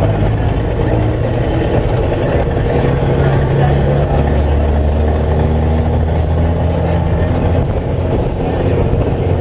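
Scania F94 HB bus's turbocharged, intercooled six-cylinder Scania DSC9 diesel engine running with a steady low note. Its pitch shifts a few times, about a third of the way in and again near the end.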